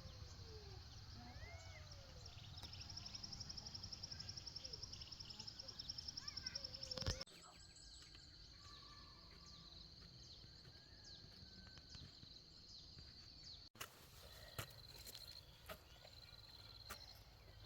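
Faint countryside ambience. A high, rapidly pulsing insect trill grows louder and stops abruptly about seven seconds in, then a steady high insect drone follows, with scattered bird chirps and a low rumble of wind.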